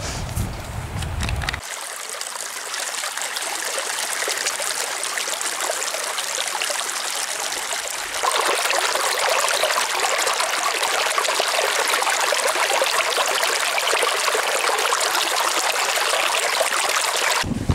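Shallow mountain stream rushing and babbling over stones and gravel, a steady rush that grows louder from about eight seconds in. It is preceded by a brief low rumble.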